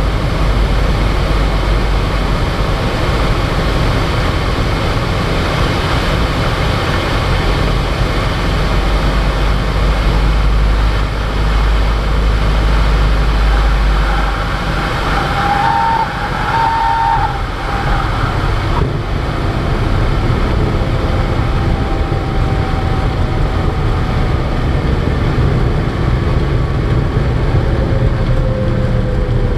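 Cessna 172RG Cutlass's four-cylinder Lycoming O-360 engine and propeller running, with wind noise, heard from inside the cockpit through the landing flare and rollout. The deep rumble eases about halfway through as the plane is on the runway, and a short high tone sounds twice soon after.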